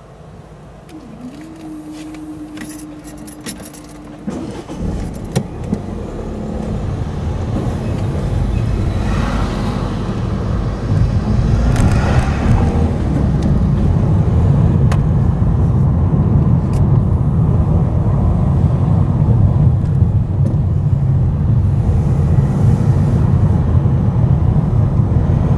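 Car pulling away and driving along a street, heard from inside the cabin: engine and tyre rumble builds from about four seconds in, then holds steady. Before it moves off there is a brief steady hum and a few light clicks.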